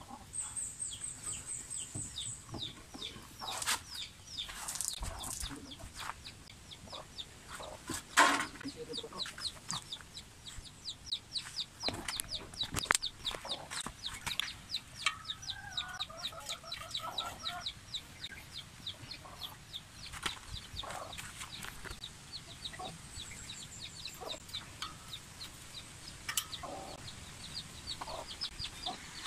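Birds chirping: a fast, even run of short high chirps, several a second, with a hen clucking briefly in the middle. A sharp knock comes about eight seconds in.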